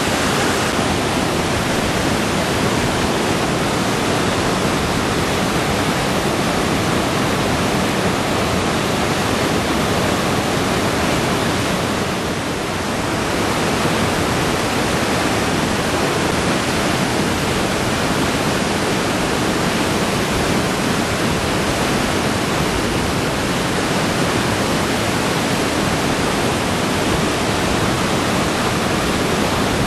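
Whitewater rapids of a rocky stream rushing steadily and loudly, with a brief slight dip about twelve seconds in.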